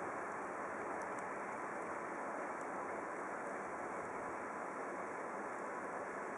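Steady hiss of distant road traffic, with a couple of faint high ticks about a second in.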